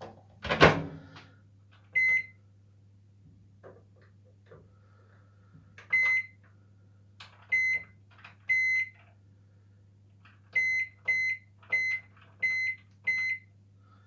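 Microwave oven door shut with a thud, then a series of short, single-pitched keypad beeps as the microwave is set and started. The beeps are spaced out at first, with a run of five quick ones near the end.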